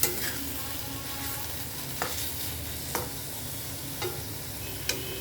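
Taro-leaf mash sizzling in a kadai as it is stirred, with about five sharp knocks of the stirring utensil against the pan. The water has almost cooked off and the leaves are starting to catch on the bottom of the pan.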